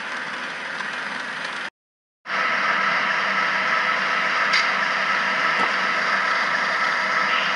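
HO scale model train, an NS GP38-2 locomotive switching boxcars, rolling along the track with a steady whirring hiss from the motor and the wheels on the rails. About two seconds in there is a half-second gap of silence, after which the whir comes back louder.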